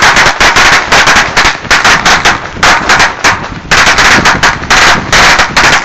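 A huge string of red firecrackers going off in a rapid, unbroken chatter of sharp bangs, many a second, very loud.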